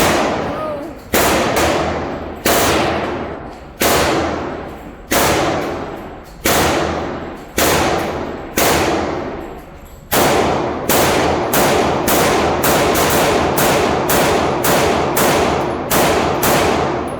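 A string of handgun shots from a pocket pistol, each a sharp crack with a ringing tail. They come about one a second at first, then speed up to roughly two a second for the last several seconds.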